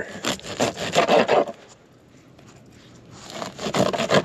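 Scraping and rubbing as a skipjack herring bait fish is handled on a cutting board, in two spells of about a second and a half, the second starting about three seconds in.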